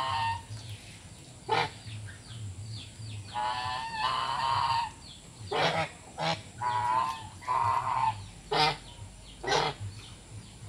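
Domestic geese honking back and forth: about ten nasal calls, some drawn out for up to a second or more, others short and sharp.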